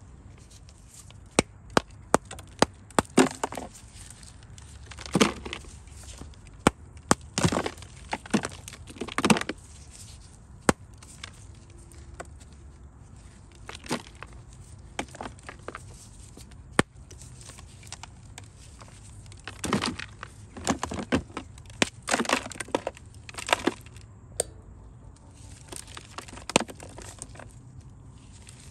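Dry lumps of white Turkestan edible clay being split and broken apart: irregular sharp cracks and short crunching, crumbling bursts, with a few pauses.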